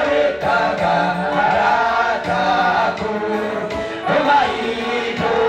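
A man singing a worship song into a handheld microphone, his voice amplified through the hall's loudspeakers.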